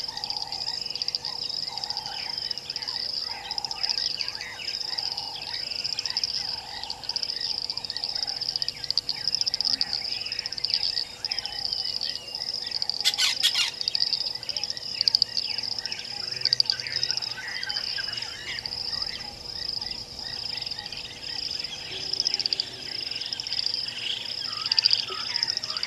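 Bush ambience at a waterhole: many birds chirping and calling over a steady high insect trill. A lower call repeats about once a second through the first ten seconds or so, and a short burst of clicks comes about thirteen seconds in.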